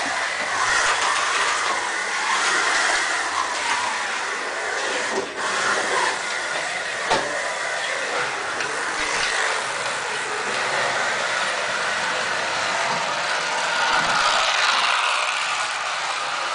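1:32 scale slot cars running on a plastic slot track, the steady high whirring of their small electric motors, with one sharp click a little after seven seconds in.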